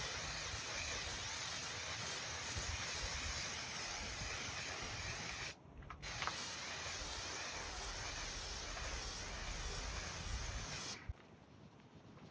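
Aerosol can of spray adhesive hissing in two long sprays of about five seconds each, with a short break between, as the carpet and board surface are coated for gluing.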